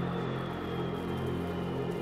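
Electronic deep techno track in a beatless passage: sustained synth drones, with a faint high tone slowly falling in pitch.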